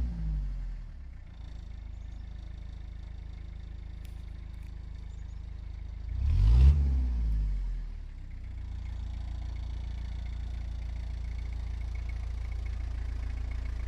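1988 Toyota 4x4 truck's engine being revved while it burns off a Seafoam engine-cleaner treatment: the revs fall away at the start, then one quick rev up and back down about six seconds in, before it settles into a steady idle.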